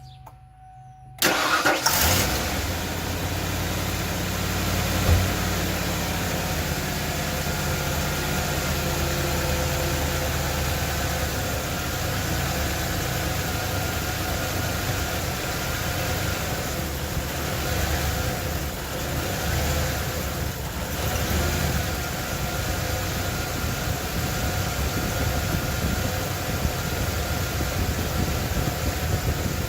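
1995 Ford Bronco's 302 V8 (fuel-injected) starting about a second in, briefly louder as it catches, then settling into a rough idle. The owner suspects leaking vacuum lines as the cause of the rough idle.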